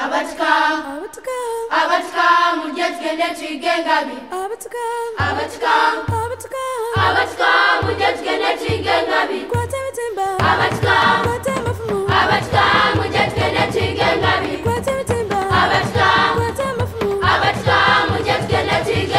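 A choir singing as background music, with a drum coming in about five seconds in and a steady beat from about ten seconds in.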